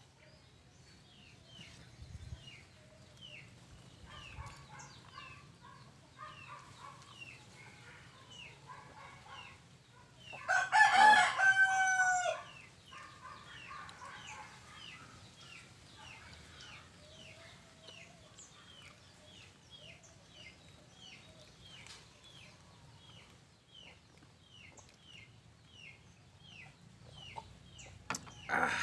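A rooster crows once, loud, about a third of the way in, with hens clucking and a small bird chirping over and over in short repeated notes. Near the end a drinking glass is set down on the wooden table with a short knock.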